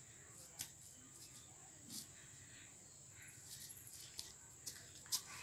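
Faint steady high-pitched chirring of crickets, with a few faint taps scattered through.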